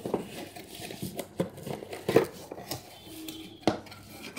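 Cardboard product box being handled and opened: rustling and tapping of the carton and its flaps, with a few sharp knocks, the loudest about two seconds in.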